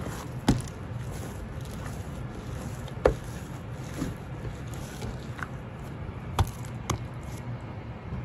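Bread dough being kneaded and shaped by hand on a table: a handful of sharp knocks and slaps as the dough is pressed, turned and set down, over a steady low background noise.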